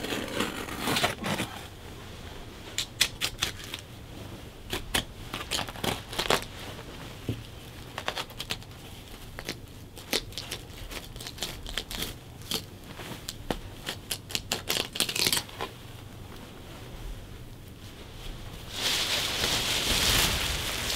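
Carpet being ripped up off a concrete floor, in irregular runs of crackling snaps and tearing. Near the end this gives way to a steadier, louder rustle of a plastic bag as the carpet is handled into it.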